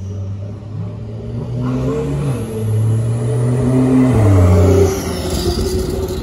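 Porsche 911 Carrera's flat-six accelerating up the street toward and past, its engine note climbing and stepping through gear changes. It is loudest about four to five seconds in as the car passes, then drops away.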